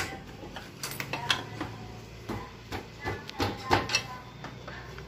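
Irregular metallic clinks and taps, some with a short ring, as a pry tool works at the seam of a Daihatsu Xenia automatic transmission case to split the housing.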